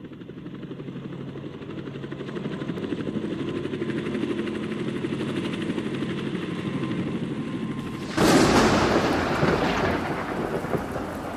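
A low, rapidly pulsing hum fades in and holds steady. About eight seconds in, a loud crash of thunder breaks out and rolls on into a rain-like hiss.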